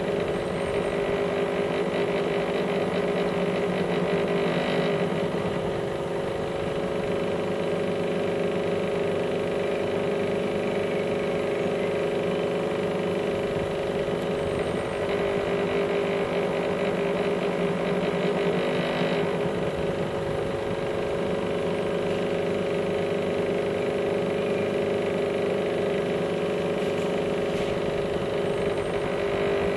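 Steady mechanical hum of a running motor, with several steady tones and no change in level.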